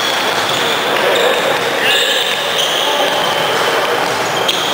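Basketball practice in a large gym: a basketball bouncing on the court and shots going up at the hoop, under a loud, steady hiss with faint high whistling tones.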